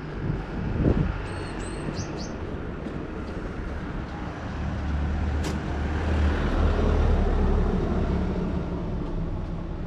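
Street ambience with a passing vehicle's low rumble that swells about halfway through and fades toward the end. A few short high chirps come near the start.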